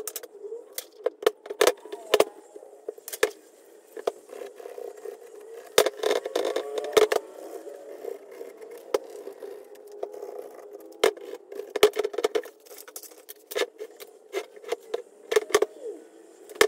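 Irregular clicks, knocks and scrapes as a bare steering wheel is handled and worked on against a tabletop, over a steady hum.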